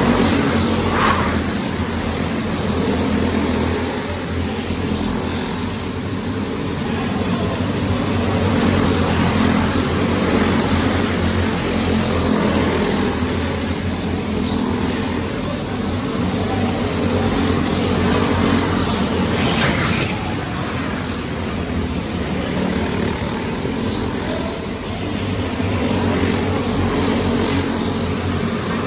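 Several racing go-kart engines running together on an indoor oval. The sound swells and fades every few seconds as the pack laps past, echoing around a large hall.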